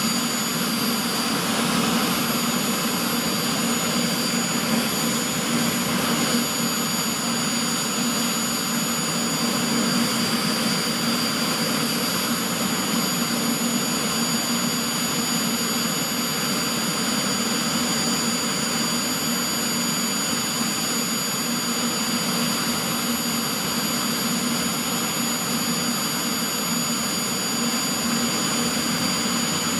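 Aérospatiale SA341G Gazelle helicopter's Turboméca Astazou IIIA turboshaft running steadily on the ground with the rotor turning: a constant rushing roar with a steady high-pitched whine over it.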